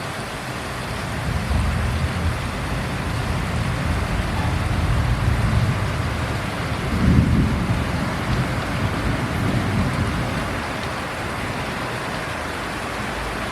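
Heavy rain falling steadily, with a long low rumble of thunder that builds about a second in, is loudest about halfway through and fades out a few seconds before the end.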